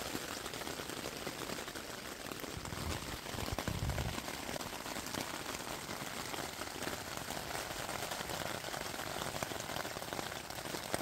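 Rain pattering steadily on a tent's nylon fly, a dense hiss of fine drops, with a brief low rumble about four seconds in.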